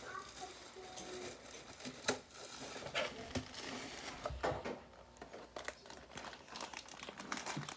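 Plastic snack wrappers crinkling and rustling, with irregular taps and knocks, as packaged snacks are handled and loaded into a homemade box vending machine.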